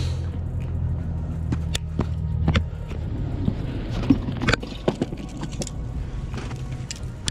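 Footsteps crunching on snow and rock, with fishing gear knocking and rattling as it is carried. Under them a steady low engine hum drops away about two and a half seconds in.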